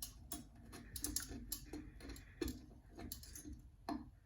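A wire scraping and clicking against the porcelain inside a toilet's siphon jet hole, catching on calcium buildup and chipping it loose: faint, irregular ticks, several a second.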